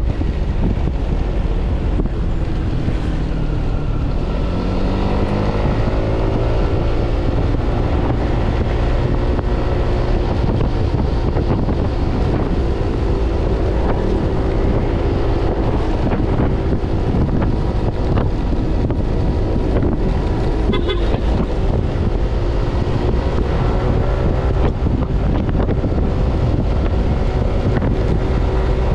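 Yamaha NMAX scooter's single-cylinder engine running while riding, its pitch rising a few seconds in and then holding fairly steady. Steady wind rush on the microphone runs over it.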